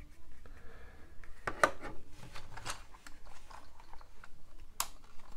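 Irregular plastic clicks and knocks as a small toy RC car is handled and turned over to reach the power switch on its underside.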